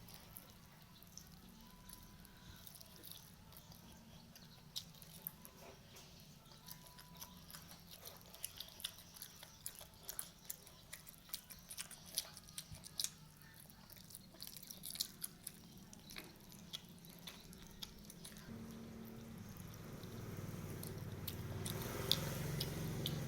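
Close-miked chewing and biting of fried chicken: an irregular scatter of sharp mouth clicks and crunches. A low hum swells up and grows louder near the end.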